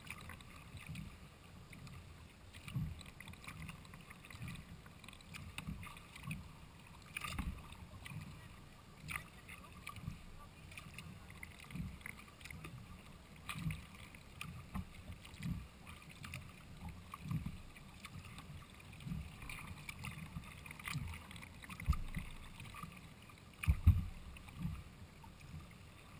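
Sea kayak paddle strokes on calm water, about one a second: each blade dipping in gives a soft splash and a low thump, the loudest near the end.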